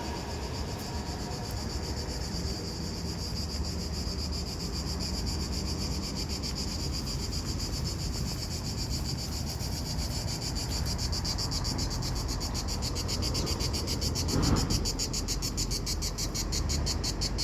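Cicadas buzzing in a steady, high-pitched chorus that turns into a rapid, even pulsing over the last few seconds. A short louder sound passes about three seconds before the end.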